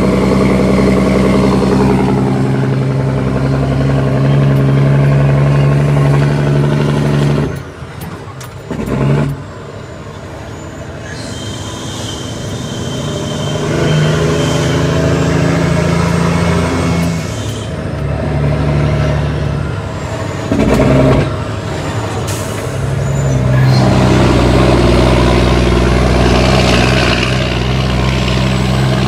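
Cummins ISX six-cylinder diesel in an International ProStar truck running under load. The engine note drops off about seven seconds in, and again twice later, each time coming back up, as it goes through gear changes. Short sharp bursts of noise come during two of the drops.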